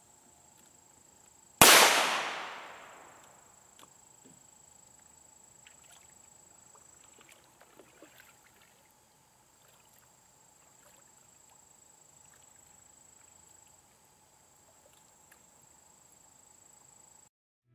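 A single .22 pistol shot, likely a Colt Woodsman, about one and a half seconds in, echoing and dying away over about two seconds. Insects buzz steadily behind it.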